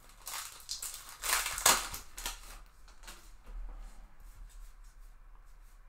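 A stack of baseball trading cards being picked up and handled, the cards sliding and rustling against each other in a run of swishes over the first two seconds, followed by a few light clicks.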